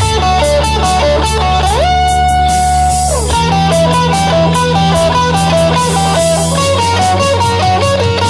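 Fender Stratocaster electric guitar played lead through a Joyo MA-10E 10-watt practice amp on its own overdrive channel, over a backing track with drums and bass. Quick melodic runs, with one long note bent up about two seconds in, held, and released about a second later; another bend near the end.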